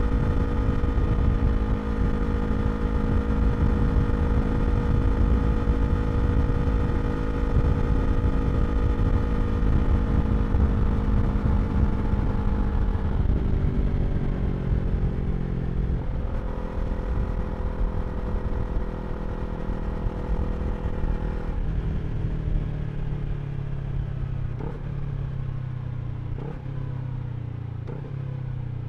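2023 Yamaha R3's parallel-twin engine through an Akrapovič slip-on exhaust, running at steady revs with wind rush on the helmet camera. The engine note then drops in steps as the bike slows and shifts down, with a few short rev blips near the end.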